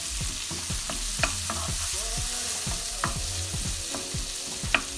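Sliced red onion, garlic and ground black pepper sizzling in oil in a non-stick wok, stirred with a wooden spatula that scrapes and taps against the pan. A steady sizzle runs under the stirring, with a few sharper knocks of the spatula.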